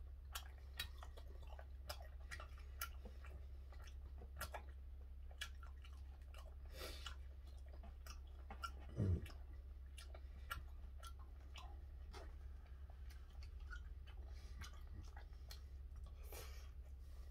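A man chewing a mouthful of food, with many small wet mouth clicks and smacks scattered throughout. About halfway through comes a brief low sound that drops in pitch, the loudest moment.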